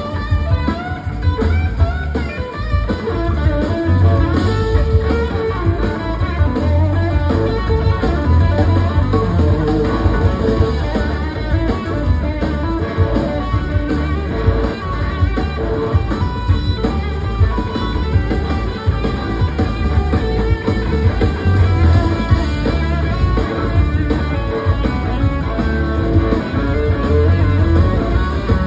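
Electric guitar solo on a Gibson SG, played live at full volume through amplifiers, over a band with bass and drums keeping a steady pulse beneath it.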